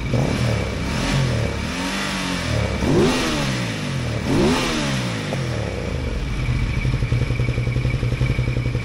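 V-twin motorcycle engine idling, blipped three times with quick rises and falls in revs between about one and five seconds in, then settling back to a steady idle. It is running properly, with both cylinders' oxygen sensors reading alike.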